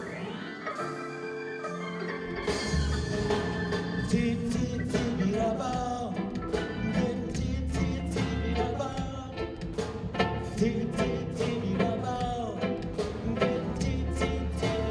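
Live band music starting a song: guitar and keyboard opening, with electric bass and drums coming in about two and a half seconds in and carrying a steady beat.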